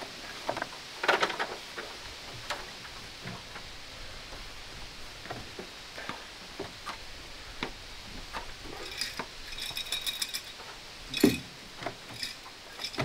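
Scattered knocks and taps of hand construction work on a small wooden shed roof, with a short metallic rattle about nine seconds in and one louder knock about eleven seconds in.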